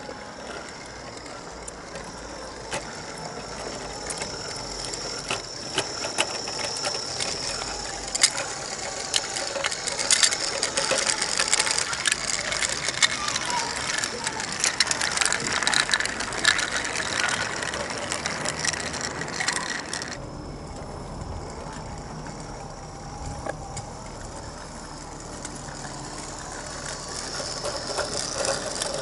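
Scratch-built 16 mm scale model locomotive, an electric gearhead motor driving its axles through crossed helical gears, hauling a string of wooden skip wagons on 32 mm gauge garden track. The gear drive and the small wheels on the rails make a busy clicking rattle, loudest as the wagons pass close, then drop away suddenly about twenty seconds in.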